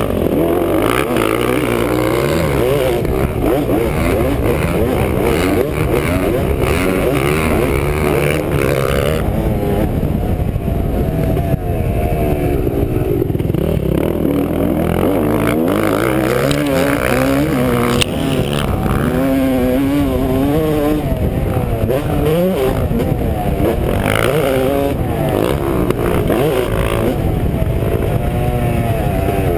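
Dirt bike engine heard close up from a camera mounted on the bike, revving up and down without a break as the rider accelerates and backs off around a motocross track.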